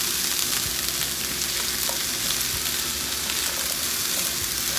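Shredded red cabbage, onions and garlic sizzling steadily in hot coconut oil in a pan.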